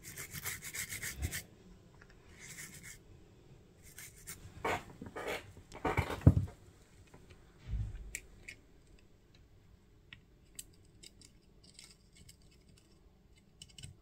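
Toothbrush bristles scrubbing the solder side of a printed circuit board in quick back-and-forth strokes, briefly again a second later. After that come a few knocks and bumps as the board is handled, the loudest about six seconds in, then a low thud and faint small ticks and scratches.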